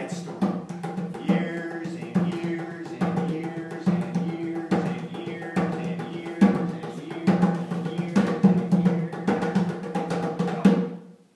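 Hand drum beaten in quick, uneven strokes over a steady low tone, cutting off abruptly near the end.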